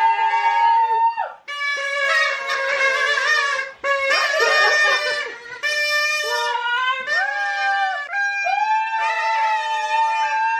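Music led by a saxophone-like wind instrument, playing long held notes that change pitch every second or two.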